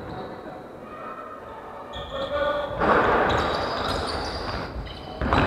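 Basketball bouncing on a wooden sports-hall floor, with players calling out, echoing in the large hall. The first two seconds are fairly quiet, then it gets louder about halfway as play picks up.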